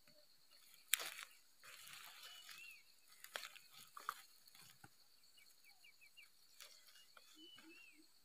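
Faint rustling of leaves and a few snaps of stalks as leafy plants are pulled up by hand, with several short high chirps in the background.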